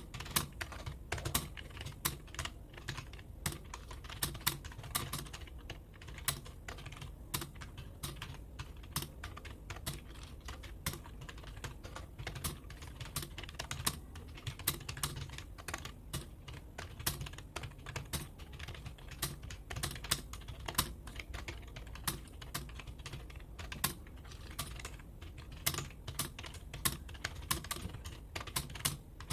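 Fast, continuous typing on a computer keyboard, several key clicks a second, during a timed typing-speed test.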